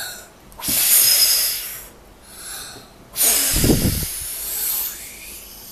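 A child huffing and puffing like the wolf blowing at a house: two long, hard blows of breath, each about a second and a half, with a quick breath drawn in before each. The second blow also rumbles on the microphone.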